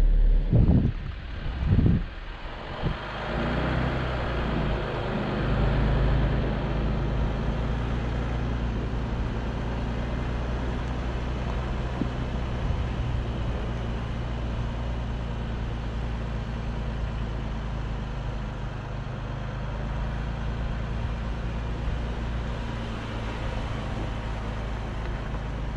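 A motor vehicle running steadily, a constant low engine hum with an even noise above it. A couple of loud thumps come in the first two seconds.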